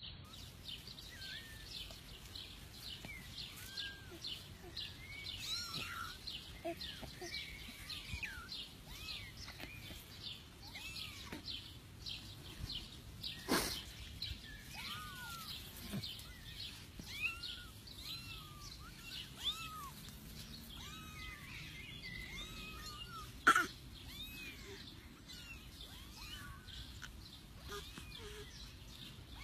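Small kittens mewing again and again, short high cries that rise and fall, over a faint steady high chatter. Two sharp clicks cut through, the louder one about three quarters of the way through.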